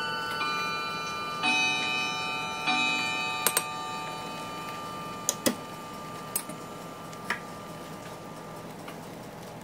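Cuckoo clock chiming: ringing notes, a new set struck twice in the first three seconds, slowly fading away. A few sharp clinks of a metal fork against the pot come over it.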